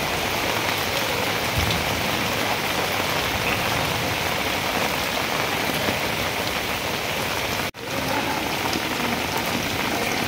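Rain falling steadily onto standing floodwater, an even, dense hiss. It cuts out for an instant about eight seconds in.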